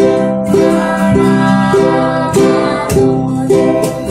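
Acoustic guitar and ukulele strummed together in a steady rhythm, with a girl singing along.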